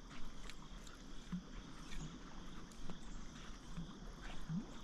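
Kayak drifting on a calm river: faint, scattered light knocks and clicks of the boat and gear over quiet water.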